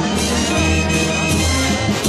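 Brass-band music with trumpets and drums over a steady beat.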